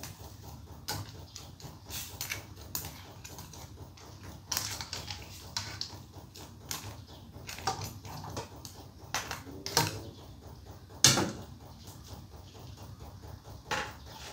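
A cooking spoon knocking and scraping against a pot while stirring a crab curry: irregular clicks and knocks, with one louder knock about eleven seconds in.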